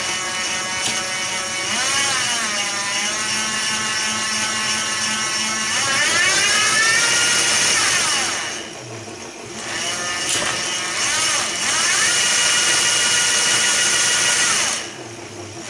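Cyclone 250 W 24 V electric motor whining as it drives the trike's chainset through its short chain, its pitch rising and falling as the speed changes. It winds down and drops away twice, about halfway through and near the end, each time spinning back up.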